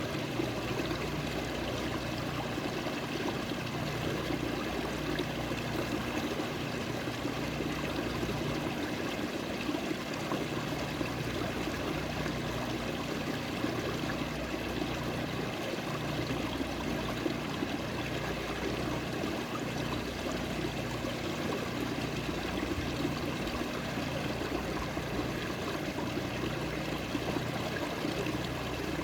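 Water flowing steadily in a small stream, a continuous trickling rush with no change in strength.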